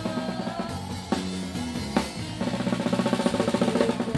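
Loud music with a drum kit and bass: a steady kick-drum beat, then a fast drum roll building up from about halfway through.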